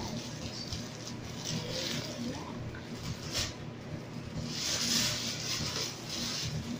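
Plastic packaging crinkling and rustling as it is handled, in irregular bursts, the loudest about five seconds in, over a steady low hum.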